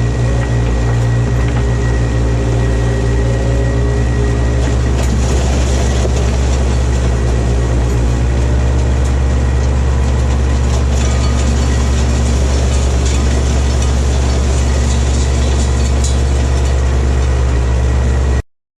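Bobcat skid steer loader's engine running steadily under load while it works a bucket of dirt, a deep rumble with a thin steady whistle above it. It cuts off abruptly near the end.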